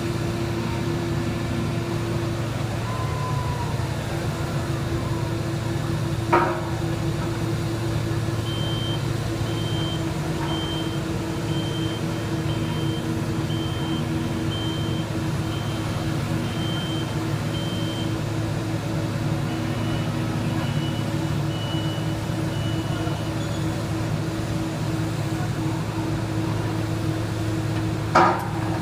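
Heavy construction machinery engine running steadily, with a reversing alarm beeping repeatedly through the middle stretch. Two sharp metallic clanks ring out, one about six seconds in and one near the end.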